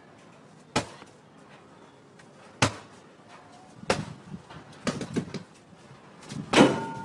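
Blows landing on a hanging punching bag: a series of single thuds, some in quick pairs, the loudest near the end.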